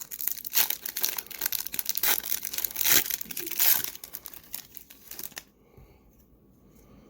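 A 2018-19 Upper Deck Synergy hockey card pack being torn open and its wrapper crinkled by hand, a dense run of crackles that stops about five and a half seconds in.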